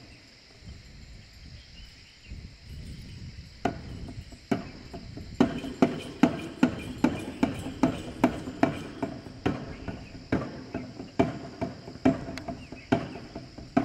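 Jhakri shaman's dhyangro frame drum beaten by hand. A few scattered strikes come first, and past the middle it settles into a steady beat of about two to three strikes a second.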